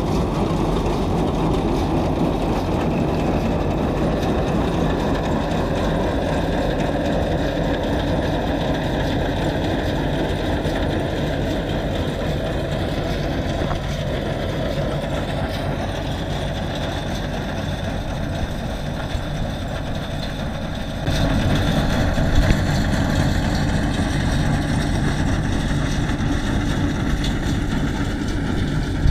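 YUMZ-6 tractor's diesel engine running steadily. About 21 seconds in it suddenly gets a little louder.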